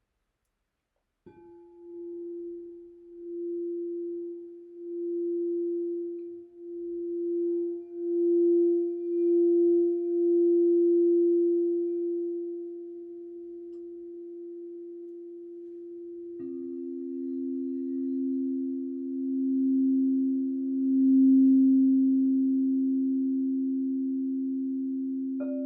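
Crystal singing bowls. One is struck about a second in and rings with a pure, steady tone that swells and fades in slow waves. A second, lower bowl is struck about two-thirds of the way through and rings on together with the first, and a third, higher bowl is struck right at the end.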